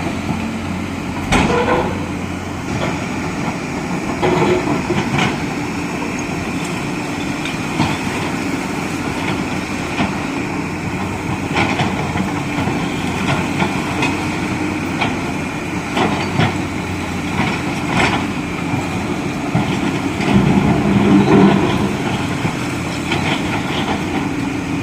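Excavator diesel engine running steadily, with scattered clanks and knocks of the machine working through demolition debris, and a louder spell of engine load about twenty seconds in.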